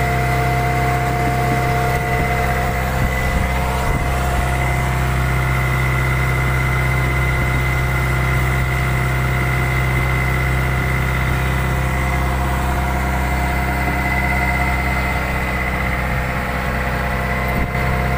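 Fishing boat's engine running steadily: an unbroken low drone with a steady high whine over it.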